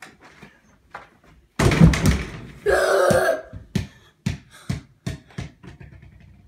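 A mini basketball dunked through an over-the-door hoop, with a loud clattering thump and rattle against the door, followed by a short shout. Then a quick run of thumps, like footsteps on the floor.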